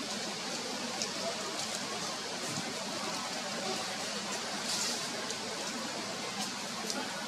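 Steady outdoor background hiss with a few faint, scattered high clicks.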